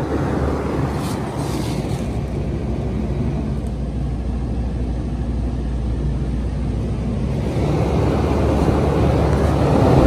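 Goodman GPH1436M41AB packaged heat pump running in heat mode: the compressor and the outdoor condenser fan run steadily, an even rush of fan air over a low hum that grows a little louder toward the end.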